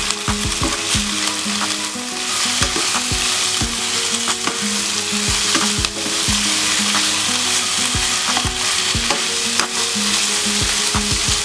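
Beef and vegetables sizzling in oil in a pan while being stirred, with frequent clicks and scrapes of the utensil against the pan.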